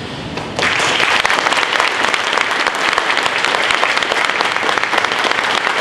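Audience applauding, the clapping breaking out about half a second in and going on steadily.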